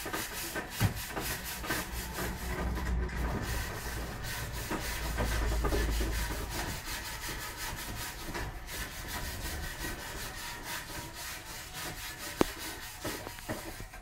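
Close, rhythmic rasping from a mother cat tending her newborn kittens, with two sharp clicks, one near the start and one near the end.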